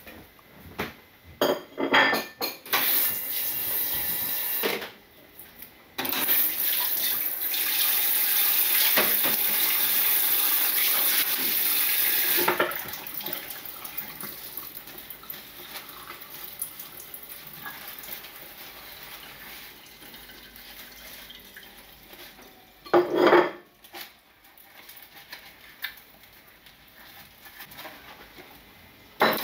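Kitchen tap running into a metal sink while dishes are washed by hand: a short run of water, then about six seconds of steady flow, followed by quieter sponge scrubbing and dishes knocking, with one brief loud burst about two-thirds of the way through.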